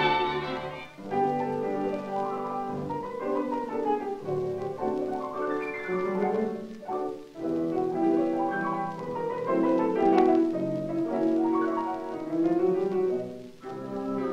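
Instrumental passage of a 1933 schlager recording: the orchestra plays the melody in phrases with short breaks between them.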